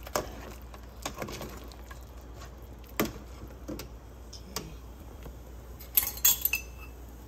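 Spoon and kitchenware clinking: a few separate light knocks, then a quick cluster of louder, ringing clinks about six seconds in, as a teaspoon of fish sauce is measured into the soup pot.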